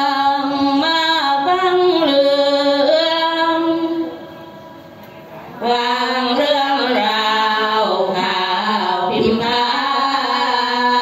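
Women's group singing sorapanya, Isan Buddhist chanted verse, unaccompanied: long held notes that step from pitch to pitch. The voices break off about four seconds in and start again a second and a half later.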